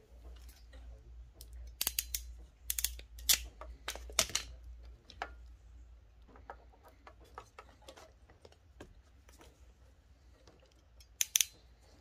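Sharp snips and clicks from a hand wire stripper working on car wiring loom. There is a cluster of them from about two to four seconds in, smaller ticks after that, and a quick loud pair near the end.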